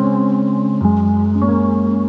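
Background music: sustained ambient keyboard chords, changing twice.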